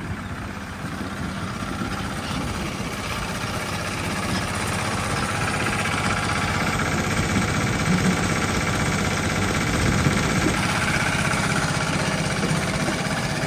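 Sugar beet cleaner-loader running steadily: its engine and chain elevator clatter as beet drops off the elevator into a lorry trailer. The noise grows louder over the first few seconds, then holds.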